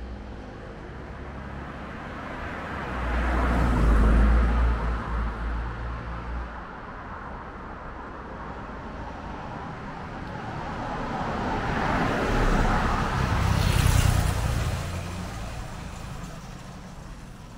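Street traffic with two motor vehicles passing close by, one about four seconds in and another near the end, each swelling up and fading away over a steady background of traffic noise.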